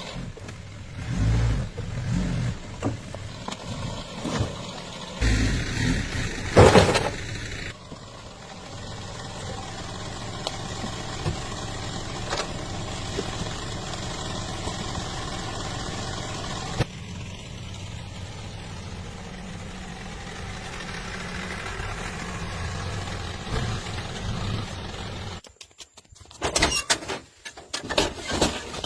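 Jeep engine running, heard across several cut-together clips, with a sharp ringing knock about seven seconds in.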